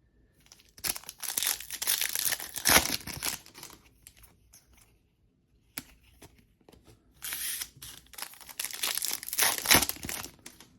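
Plastic trading-card wrapping being torn open and crinkled by hand, in two bouts of a few seconds each, with a single sharp click between them.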